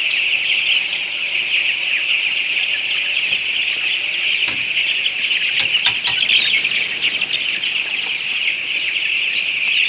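Dense, steady, high-pitched chorus of thousands of broiler chickens peeping and chirping together in a crowded poultry house, with a few faint clicks about halfway through.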